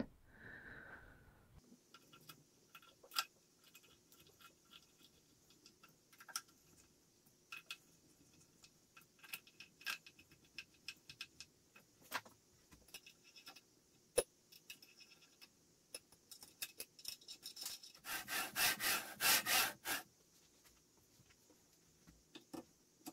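Scattered light metallic clicks and taps from aluminium CNC carriage parts and screws being handled during assembly, with a run of quick rasping strokes lasting about two seconds near the end.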